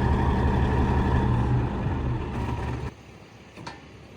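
A heavy diesel engine running steadily at idle. It cuts off suddenly about three seconds in, leaving only quiet background.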